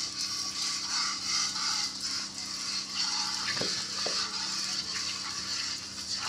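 Milk squirting from a cow's teats into a steel bucket during hand milking, a hissing spray that comes in pulses about twice a second as the hands alternate.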